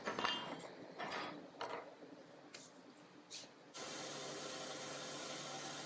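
Several sharp clicks and knocks of metal workshop tools being handled, then an abrupt change, a little over halfway through, to a steady power tool running.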